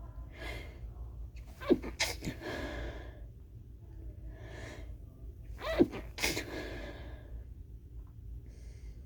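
Two stifled sneezes about four seconds apart, each preceded by a gasping in-breath and ending in a short sharp burst with a breathy tail, part of a long sneezing fit.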